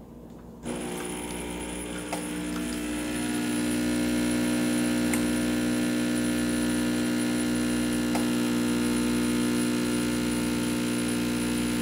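Oster Prima Latte II espresso machine's pump humming steadily while it brews coffee into a glass cup. It starts about half a second in and grows louder a few seconds later.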